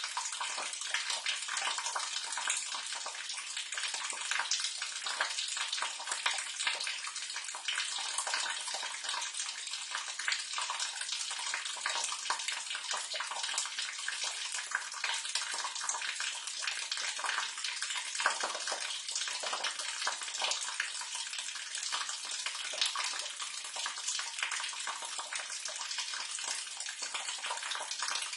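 Water splashing and pouring steadily down into a sewer or storm drain, a continuous splatter with no pauses.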